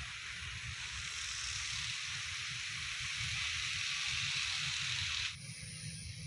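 Outdoor ambience: a steady high hiss over an uneven low rumble of wind on the microphone. The hiss stops abruptly about five seconds in, leaving the wind rumble and a fainter hiss.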